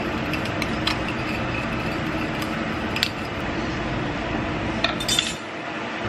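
Metal spoon stirring a thick sauce in a bowl, clinking against the side several times, with a cluster of clinks near the end, over a steady background hum.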